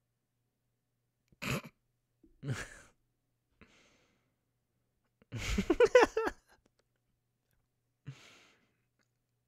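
A man laughing into a close microphone: two short breathy chuckles through the nose, then a longer laugh about five to six seconds in, and one last short exhale of a laugh near the end.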